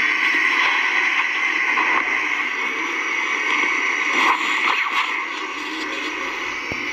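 Steady static-like hiss with a few faint scrapes and knocks about four to five seconds in.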